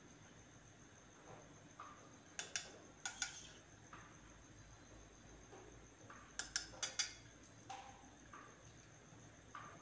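Faint, scattered clicks and light knocks from handling a plastic jar and a steel pressure cooker as boiled, peeled tomatoes are moved from the cooker into the jar. The clicks come in two small clusters, about two to three seconds in and again about six to seven seconds in.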